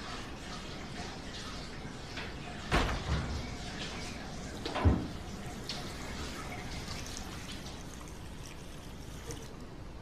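An apartment's front door being shut. There is a pair of knocks near three seconds in, then a sharp, louder thud about five seconds in as it closes.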